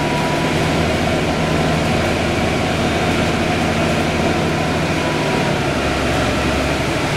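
Diesel-electric hybrid drivetrain of a 2011 Orion VII transit bus running, heard from inside the passenger cabin along with road noise. The steady hum shifts to a lower note near the end.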